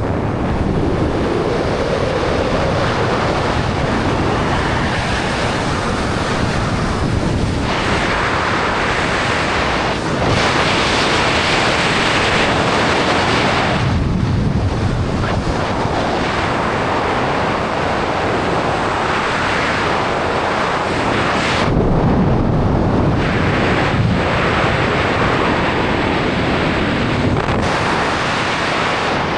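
Rushing wind buffeting the microphone of a wingsuit flyer in flight: a loud, steady roar of air that swells and eases a few times.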